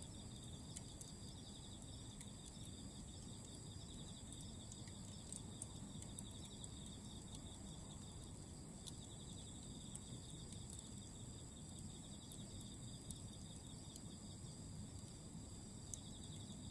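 Several night insects chirping in steady high pulsed trills, with sparse faint crackles from Iwate cut charcoal burning as embers in a fire pit.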